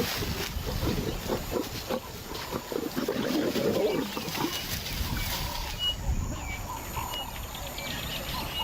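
Lion growling and grunting in short irregular bouts, heaviest about three to four seconds in, then quieter.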